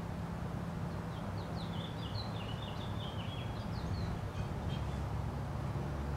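A songbird singing a quick run of high chirps and short trills for about four seconds, over a steady low rumble.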